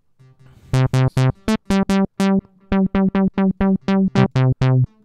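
u-he Diva software synthesizer playing a quick staccato riff of short, plucky sawtooth notes, about four or five a second, each one bright at the start and closing down fast. The oscillators reset on every note, giving the snappy, digital-sounding bite at the top of each pluck.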